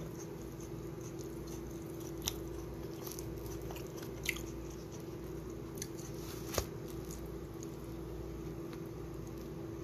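A steady low hum with a single held tone, broken by three faint short clicks about two seconds apart.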